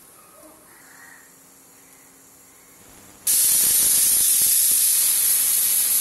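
Prestige pressure cooker whistle going off: about three seconds in, a loud, steady hiss of escaping steam starts suddenly and keeps going as the pressure weight lifts. This is the sign that the cooker has come up to pressure.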